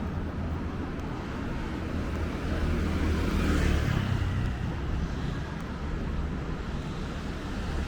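Road traffic on a city street: a steady rumble of engines and tyres, with one vehicle passing closer and louder about three to four seconds in.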